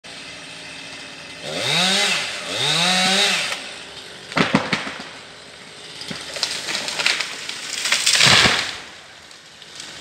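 Chainsaw revved twice, its pitch rising and falling each time, followed by a run of sharp cracks and knocks and one heavy, deep thump about eight seconds in.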